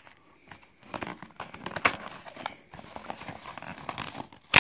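Cardboard mailer box being pried and torn open by hand: irregular scraping, rustling and knocks of the cardboard, with a sharp snap about two seconds in and a louder one near the end.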